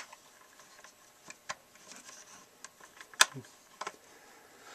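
A few light metallic clicks and clinks of a small 3/8 wrench working the clamp nut on a Dremel Moto-Lathe 700's tool rest as it is tightened down, the sharpest click about three seconds in.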